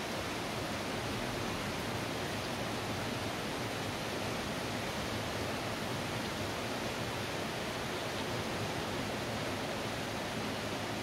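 Steady hiss of falling rain.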